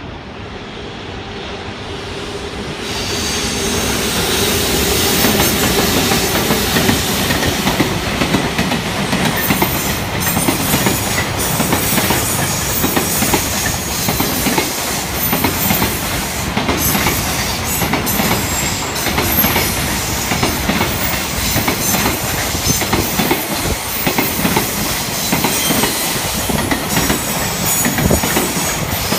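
Freight train hauled by an EH200 electric locomotive passing: the sound builds over the first few seconds as the train nears, then the freight wagons roll by with a long run of wheels clattering over rail joints.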